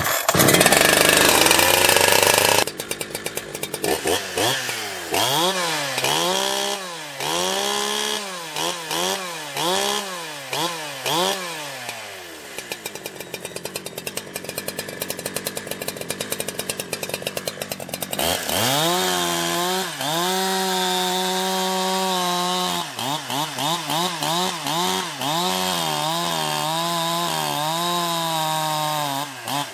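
Holzfforma G372 two-stroke chainsaw running, revved up and down over and over with quick throttle blips, dropping to a lower steady run in the middle and held at steady high revs for a few seconds about two-thirds of the way in.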